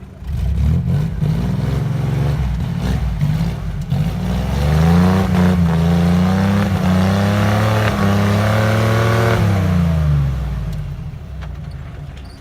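Off-road vehicle's engine revving hard. It starts suddenly, climbs in pitch and holds high for several seconds, then drops and fades near the end, with some knocks and clatter along the way.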